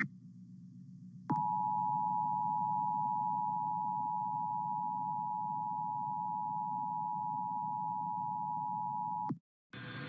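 Emergency Alert System attention signal: a steady two-tone alert tone that starts about a second in, holds for about eight seconds, then cuts off suddenly. It marks the start of a Required Monthly Test.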